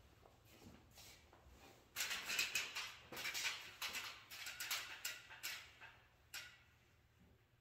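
A pick and hands working the rubber windshield gasket lip over the glass and pinch weld, giving a series of short irregular rubbing and scraping strokes that start about two seconds in and stop around six and a half seconds.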